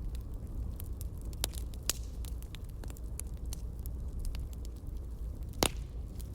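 Campfire crackling: a steady low noise of burning wood with irregular sharp pops and snaps, the loudest pop about five and a half seconds in.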